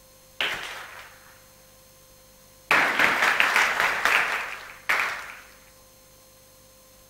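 Audience applause in three bursts: a short one about half a second in that fades within a second, a longer round of clapping from about three to five seconds in, and a last burst that fades out.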